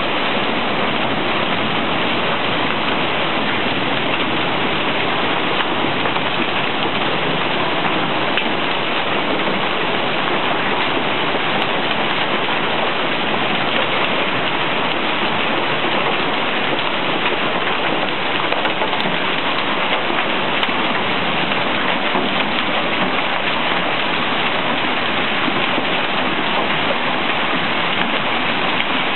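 Heavy hail mixed with rain pelting a paved street, a dense, steady hiss.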